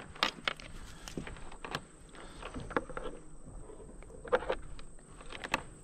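A hooked dourado thrashing and splashing at the side of a kayak, with scattered short knocks and clicks as it is grabbed with a plastic lip gripper.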